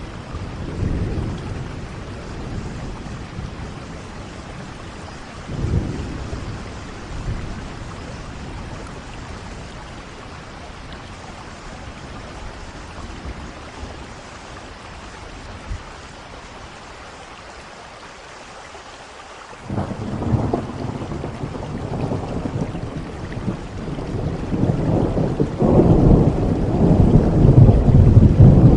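Steady rain with rolling thunder: low rumbles early on fade into a quieter stretch, then a sudden clap about two-thirds of the way through swells into the loudest, longest rumble near the end.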